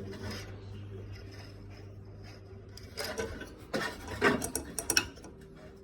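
Rubbing, scraping and a few sharp clicks from small parts of an oven's cooling-fan assembly being handled during disassembly, heaviest between about three and five seconds in. A steady low hum runs underneath.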